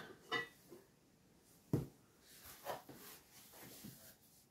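Quiet sounds of kitchenware being packed into a cardboard box: a soft thump a little under two seconds in, then a few light knocks and faint rustling.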